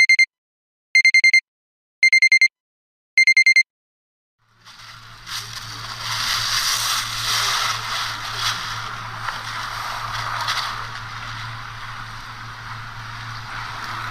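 Four quick groups of electronic alarm-style beeps, each group a rapid run of high tones, about a second apart. After a moment of silence, steady seaside noise of wind and surf with a low hum beneath it takes over.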